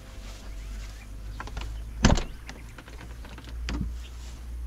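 Camper van's side entry door being unlatched and opened: a few small latch clicks, then a sharp loud clunk about two seconds in, and a second, softer knock near the end.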